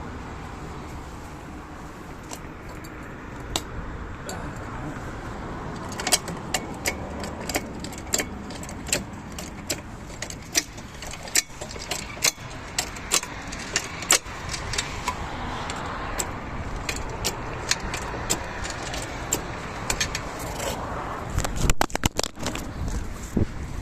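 Irregular sharp metallic clicks and clinks, about one or two a second, as metal tools or parts are handled, with a louder clatter near the end.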